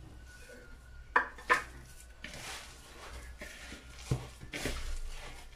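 Two sharp knocks of a plastic container against a mixing bowl as the last desiccated coconut is shaken in, then the soft rustle of hands rubbing a crumbly semolina-and-coconut dough in the bowl, with one more light knock partway through.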